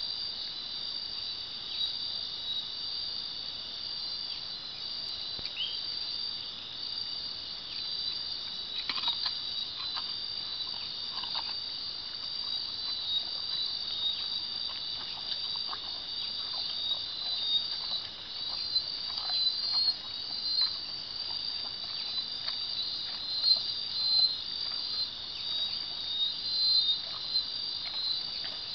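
Steady night chorus of insects, several layered high-pitched trills running without pause, with scattered short rustles and clicks over it from about a third of the way in.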